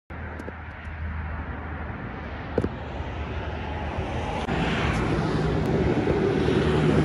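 Outdoor road traffic: a steady low rumble of vehicles that grows louder from about halfway through, with a single sharp click about two and a half seconds in.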